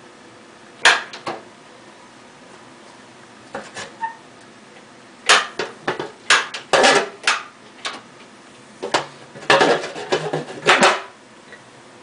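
Irregular metallic clanks and rattles as the countertop dishwasher's lid and bottom fitting are handled: a couple of knocks about a second in, then denser clusters of clatter in the middle and near the end.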